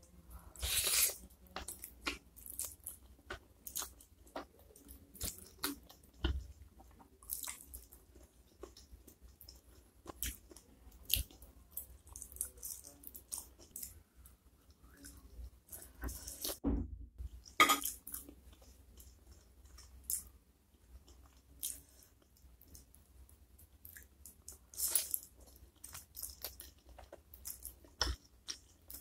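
Close-miked eating sounds: flat noodles being slurped and chewed and spicy chicken feet being bitten and chewed, in irregular wet clicks and crunches, with a few louder slurps or bites scattered through.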